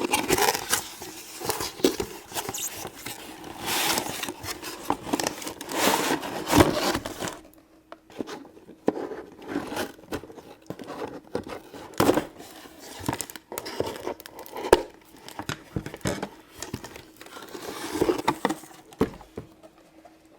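Toy packaging being opened by hand: cardboard and plastic crinkling and tearing, densest for the first several seconds, then scattered clicks, knocks and short rustles as the pieces are handled.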